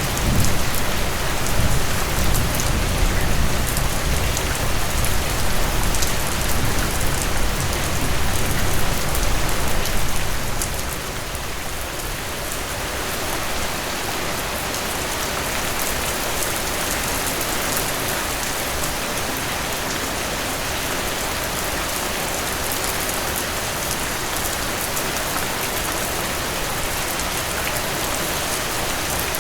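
Steady rain falling on a surface, a dense hiss with scattered individual drop ticks. It is louder and deeper for about the first ten seconds, then settles to an even level.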